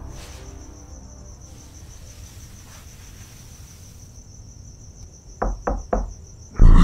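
Crickets chirping steadily in a night-time sound bed, then three quick knocks of a fist on a door about five and a half seconds in. A loud sudden sound cuts in at the very end.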